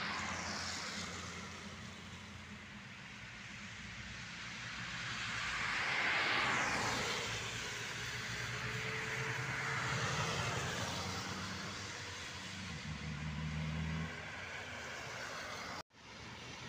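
Solaris Urbino city bus driving past on a wet road: its engine runs steadily and its tyres hiss on the wet surface, loudest about six seconds in as it goes by, with the pitch sliding as it passes. Near the end the sound cuts off abruptly.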